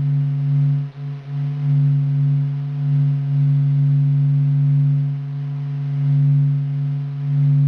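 Sun's vibrations converted into sound: a deep, steady hum of several held tones that swells and fades slowly, dipping briefly about a second in.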